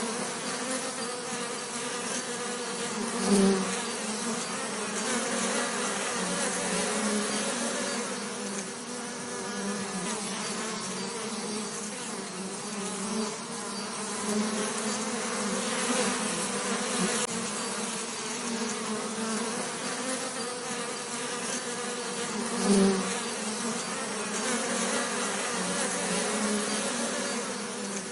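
Bees buzzing steadily in a continuous drone, swelling louder twice as a bee passes close.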